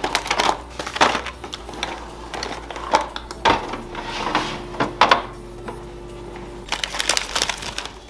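Plastic food-storage containers and clear plastic fridge bins knocking and clattering as they are set down, stacked and slid onto a shelf: a string of short sharp clicks and taps, over soft background music.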